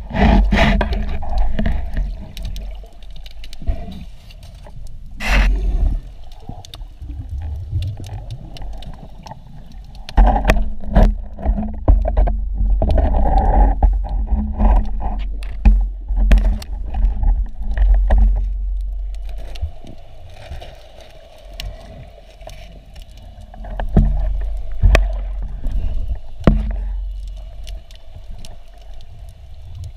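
Underwater sound picked up by a spearfisher's camera housing: a low rumbling rush of water that swells and fades in stretches, with scattered sharp clicks and knocks and one loud knock about five seconds in.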